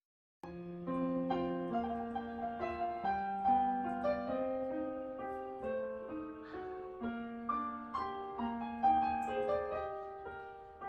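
Background piano music: a gentle melody of separate notes over a few lower notes, starting about half a second in.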